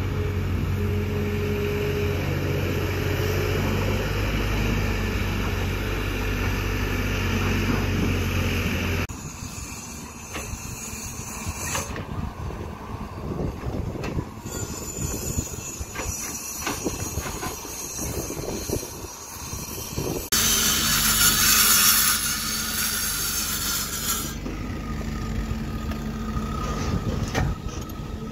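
Kobelco hydraulic excavator's diesel engine running steadily as it digs soil, cutting off abruptly about nine seconds in. After that, quieter construction-site sound with scattered knocks, and a loud hiss for about four seconds near the end.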